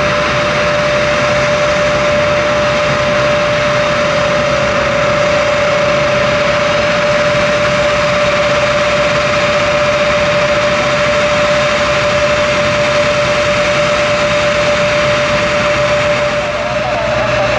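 Embraer 170's twin turbofan engines running, a steady rushing noise with one constant whine through it.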